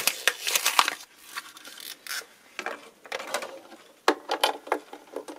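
Handling noise from a luthier's hands: crinkling of plastic packaging, then a run of small clicks and scrapes as a large replacement volume potentiometer is worked through the f-hole of a semi-acoustic guitar. The busiest rustling is in the first second.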